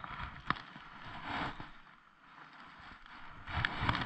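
Short spells of rustling with a few light clicks: handling noise from gloved hands working fishing line and gear at the ice hole.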